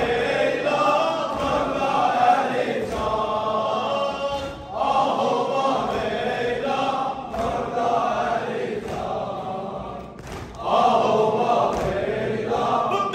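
A congregation of men chanting a prayer together in long phrases, with brief breaks about twice.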